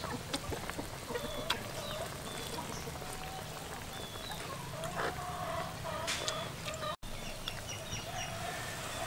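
A chicken clucking in short, low calls, on and off.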